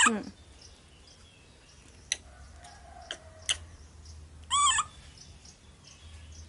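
Baby monkey giving short, high-pitched calls: a falling one right at the start and another about four and a half seconds in. Two faint clicks come in between.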